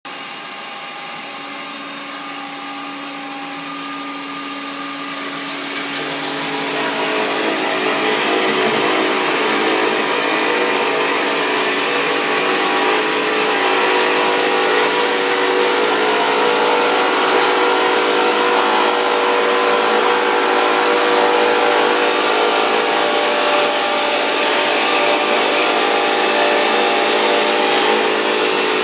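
Metal-cutting saw machine running with a steady whine. It builds up over the first several seconds, then holds at a constant level.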